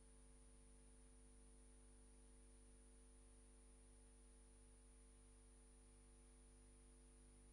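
Near silence: a faint, steady electrical hum with a thin high-pitched whine, and no other sound.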